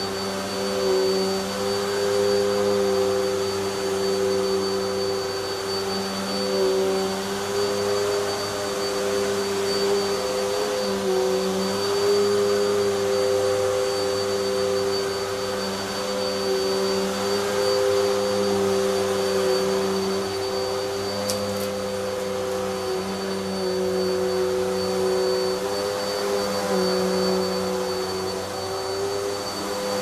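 Vax Zoom Pet U87-ZM-P 1800W upright vacuum cleaner running steadily as it is pushed over carpet. Its motor note wavers slightly in pitch, with a thin high whine above it.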